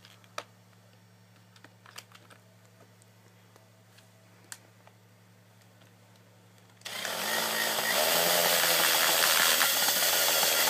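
A few light plastic handling clicks, then about seven seconds in a hand-held power tool starts and runs loudly and steadily, making a hole in the plastic airsoft stock.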